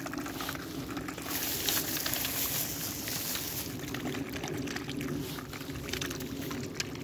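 Mute swans and cygnets feeding at the water's edge: many small, irregular splashes, slurps and clicks as their bills dabble in the water, over a steady background hiss.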